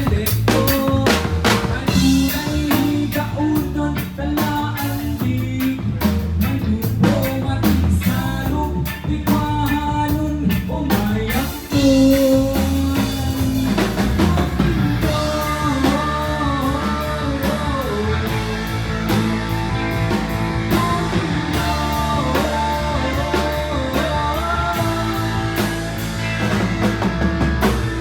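Live band playing a song on drum kit, bass and electric guitar, with a steady beat; about halfway through the drum hits thin out and a wavering melody line carries on.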